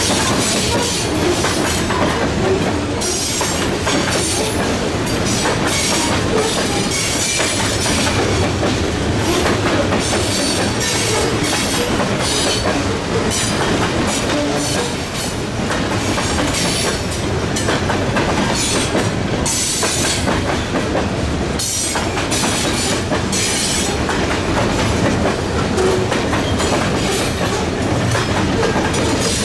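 Freight train cars rolling past, their steel wheels clicking over the rail joints again and again over a continuous rumble.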